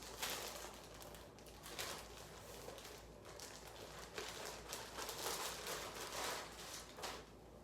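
Plastic packaging rustling and crinkling in irregular bursts as clothing items are handled and unwrapped, dying down near the end.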